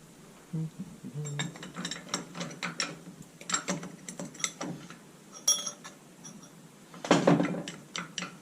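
Steel brake plates and a gear in a forklift's hydraulic reverser clicking and clinking as they are turned by hand to bring the gear teeth into line and seat it flush, with a louder clatter about seven seconds in.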